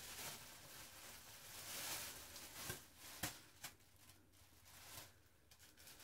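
Faint rustling and crinkling of a thin plastic shower cap being pulled on over dye-coated hair and adjusted, with a few small clicks about three seconds in.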